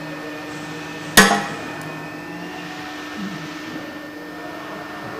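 A single sharp hammer blow about a second in, ringing off briefly, over a steady low electrical hum.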